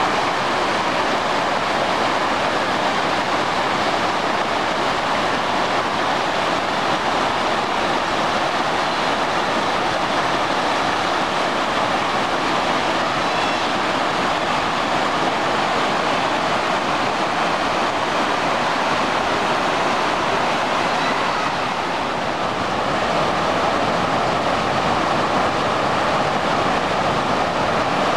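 A creek in flash flood, with muddy high water rushing steadily and loudly over rock ledges and rapids.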